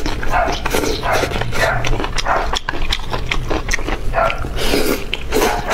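Close-miked mouth sounds of someone eating: wet chewing and lip smacking in quick, irregular smacks.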